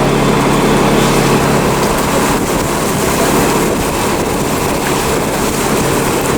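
Loud, steady vehicle noise: an engine running close by under a continuous wash of traffic rumble, its low hum fading a second or two in.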